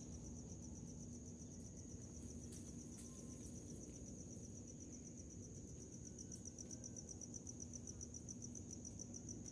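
Crickets trilling steadily, a faint high, evenly pulsed chirring, over a low steady hum.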